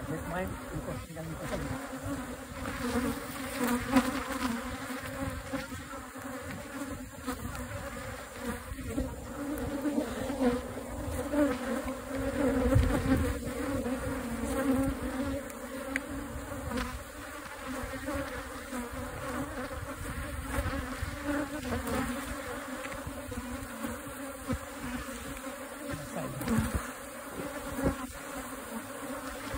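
A large number of honeybees from an opened wild colony buzzing in a steady, dense hum while their comb is being cut out, with a few light knocks.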